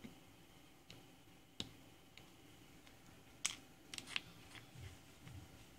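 Scattered faint clicks and taps from tweezers and a small SMD circuit board being handled on a wooden workbench. The loudest few come a little past halfway, as the board is picked up and turned over.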